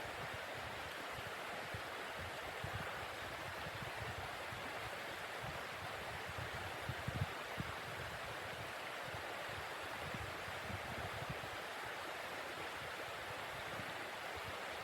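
Steady rushing wind of a snowstorm, with short low gusts buffeting the microphone, the strongest about seven seconds in.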